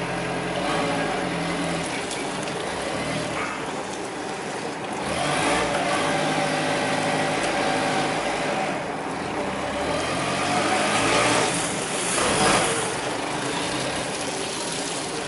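Toyota 8FDF18 forklift's diesel engine running as the truck is driven around, its revs rising and falling, louder about five seconds in and again around eleven to twelve seconds.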